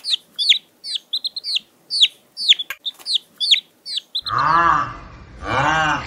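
Short, high, falling chirps repeated about two or three times a second. About four seconds in they give way to two louder, lower animal calls that rise and fall.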